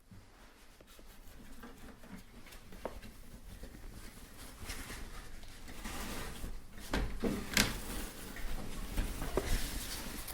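Unpacking noise as a large PC tower case is worked out of its bag and packing: rustling with scattered knocks and bumps that grow louder, busiest after about seven seconds.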